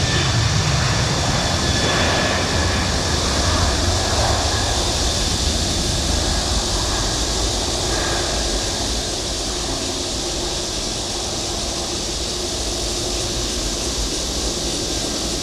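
Jet airliner engines running with a steady rumble and hiss, easing off slightly about nine seconds in.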